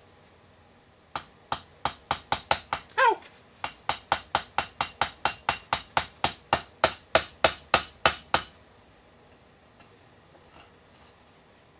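Steel hammer blows driving a tight-fitting steel round-bar plug into a heated steel plate held in a vise: about thirty sharp, ringing strikes at roughly four a second, with a short break about three seconds in, stopping a little past eight seconds.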